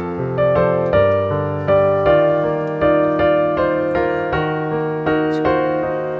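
Background piano music: a gentle melody of struck notes, each fading after it is played, at an even, unhurried pace.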